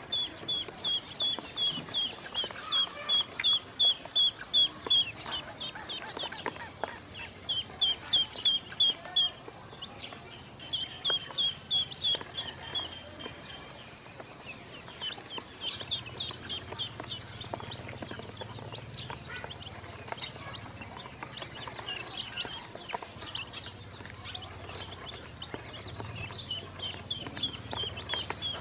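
Black chicks and yellow ducklings peeping: rapid runs of short, high peeps, about four or five a second, with brief pauses between runs.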